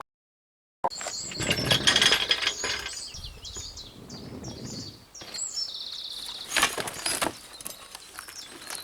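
Outdoor ambience with small birds chirping, including a short fast trill about six seconds in, over rustling and a few knocks in the first couple of seconds.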